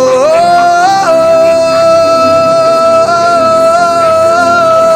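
A singer slides up through a few steps in the first second, then holds one long high note steady, letting it fall away near the end, over worship backing music.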